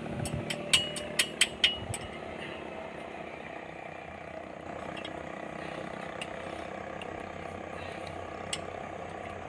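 A few sharp metallic clicks in the first two seconds, then one more near the end, as small metal parts are handled and knocked together, over a faint steady low hum.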